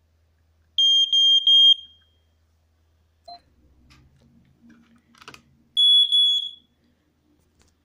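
Smoke detector on test sounding its alarm twice, each a high-pitched, slightly pulsing beep about a second long, the two roughly five seconds apart. A short sharp click comes between them.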